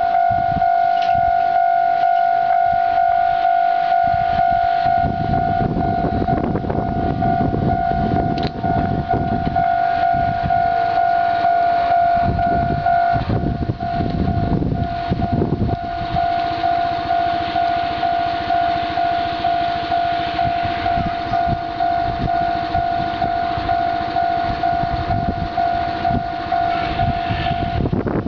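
Japanese level-crossing warning bell ringing in a steady, regularly pulsing tone, while the diesel engine of an approaching single-car KiHa 220 railcar comes in underneath as a low rumble, growing from about five seconds in.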